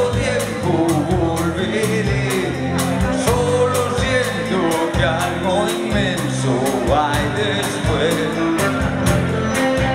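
A live rock band playing: a male lead singer sings over electric guitars, bass and a drum kit keeping a steady beat.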